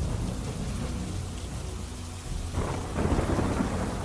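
Storm noise of wind and rain with a deep rumble underneath, surging louder about two and a half seconds in.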